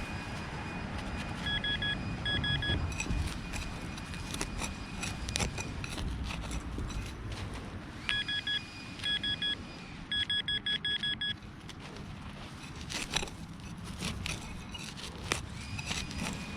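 Metal detector giving short, same-pitched target beeps in groups: two pairs early on, two more pairs about eight seconds in, then a quick run of about eight beeps. Scattered sharp knocks and scrapes sound between them.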